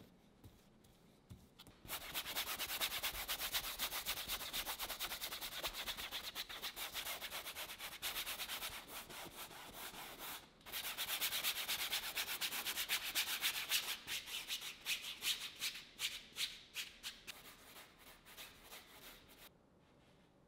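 Flat bristle brush scrubbing oil paint onto canvas in quick back-and-forth strokes, starting about two seconds in. There is a brief break about halfway, and the strokes grow sparser and softer toward the end before stopping.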